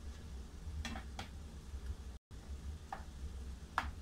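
Sliced mushrooms and garlic frying in a nonstick pan while a spatula stirs them, with a few short clicks and scrapes of the utensil against the pan. A steady low hum runs underneath, and the sound cuts out for an instant about two seconds in.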